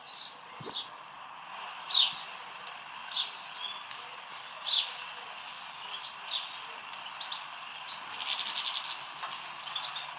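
Sparrow chirping: short, high, downward-sliding chirps at irregular intervals, with a quick buzzy chatter about eight seconds in.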